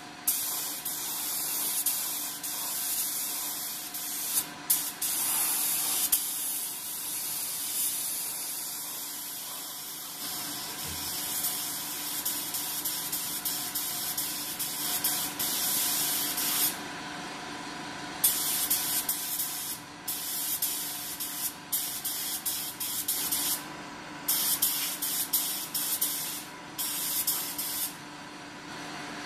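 DeVilbiss GTi Pro gravity-fed air spray gun hissing as it sprays 2-pack base coat paint, in long passes that stop and start: it cuts out for over a second past the middle and briefly a few more times.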